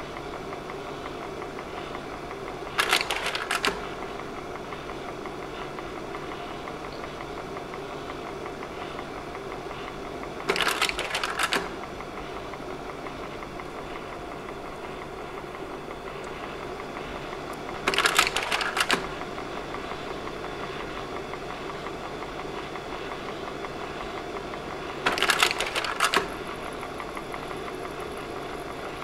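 Slide projector running with a steady fan hum, its slide-change mechanism clacking four times, about seven and a half seconds apart, each change a clatter lasting about a second.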